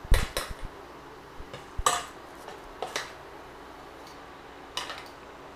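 Metal spoon clinking against a stainless steel pitcher while stirring and lifting thin pancake batter: a cluster of clinks at the start, then a few single clinks.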